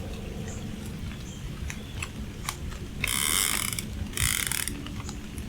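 Fishing reel ratcheting in two short spells, the second briefer than the first.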